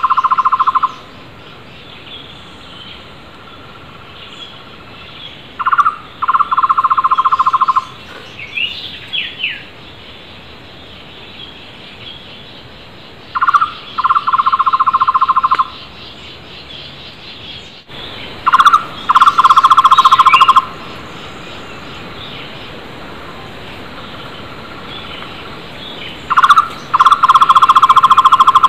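Takur tohtor (flame-fronted barbet) calling: a short lead note followed by a fast, even trill of notes lasting about two seconds, repeated about every seven seconds. Fainter calls of other wild birds come between the phrases.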